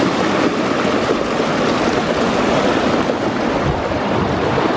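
River water rushing and splashing past the stone slabs of a low river crossing, a loud steady noise.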